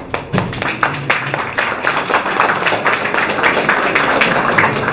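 Small audience applauding, the claps thickening into a dense clatter over the first couple of seconds.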